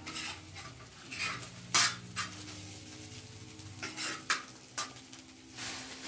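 A spoon stirring and scraping chopped greens in a metal pan, with sharp clinks of the spoon against the pan, the loudest a little under two seconds in. Near the end a plastic bag rustles.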